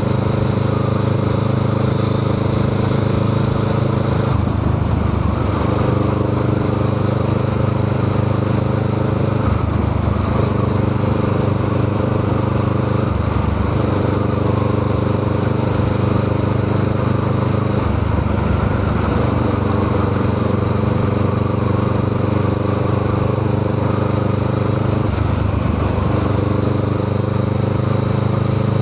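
Honda Rebel 500's parallel-twin engine running through a Musarri aftermarket exhaust muffler, giving a steady, loud exhaust note. The note breaks up briefly about five times, every four to seven seconds, then settles again.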